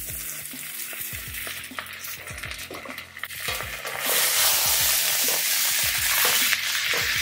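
Butterflied Cornish hen sizzling steadily in butter and olive oil in a cast iron skillet. The sizzle grows much louder about four seconds in, as the bird is flipped over with tongs onto its sauce-brushed side.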